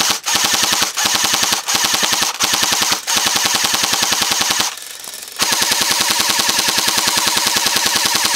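E&L AKM airsoft electric rifle firing full auto from a drum magazine, its gearbox cycling rapidly. There are quick back-to-back bursts for the first three seconds, a long burst, a short pause about five seconds in, then another long unbroken burst.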